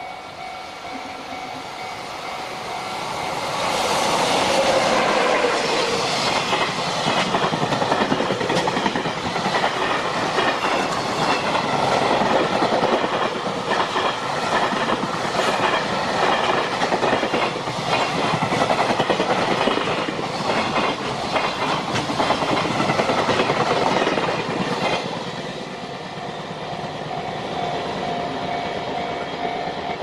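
Container freight train hauled by an EF66 electric locomotive passing close by. Its noise builds over the first few seconds, then stays loud with the clickety-clack of many wagon wheels over rail joints for about twenty seconds. It falls away sharply near the end, once the last wagons have gone by.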